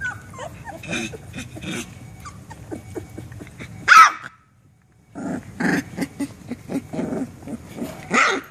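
Three-week-old chocolate Labrador Retriever puppy growling and barking in play, with small squeaky whines at the start. There is one loud bark about four seconds in, a brief silence, then a run of growls that ends in another sharp bark near the end.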